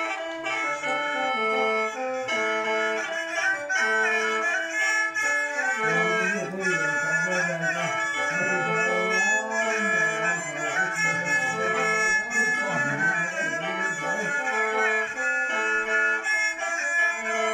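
Lao khaen (bamboo mouth organ) playing sustained chords together with a bowed two-string so fiddle, a khaen-and-so duet in the Xieng Khouang (Phuan) style. From about six seconds in, a lower wavering line glides up and down beneath the held khaen chords.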